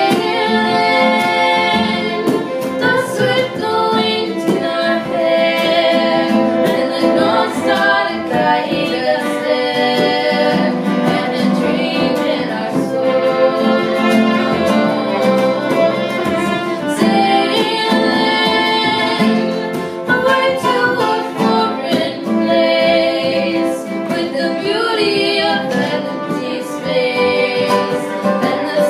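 Two young female voices singing a song together, accompanied by fiddle and strummed guitar.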